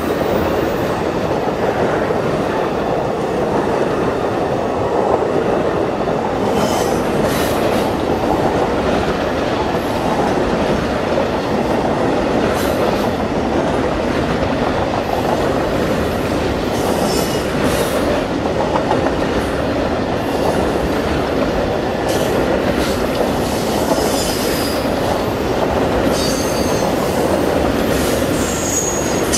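A train rolling past with steady rail noise from its wheels, and short high squeals that come and go, more often near the end.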